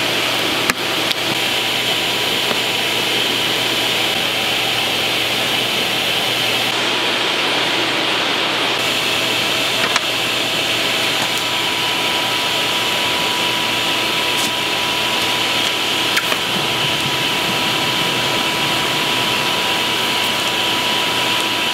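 Shop vacuum working as a coal-forge blower, running steadily and forcing air into the fire.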